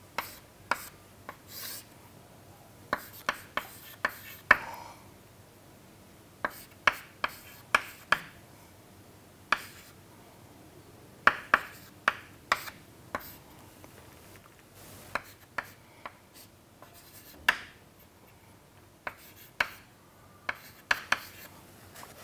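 Chalk writing on a chalkboard: irregular sharp taps and short scratching strokes as numbers and symbols are written out.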